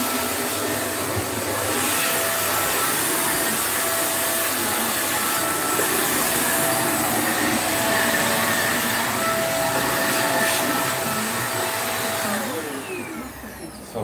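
Small corded handheld 2-in-1 vacuum cleaner running steadily with a motor whine. Near the end the whine falls in pitch and the sound dies away as the motor winds down.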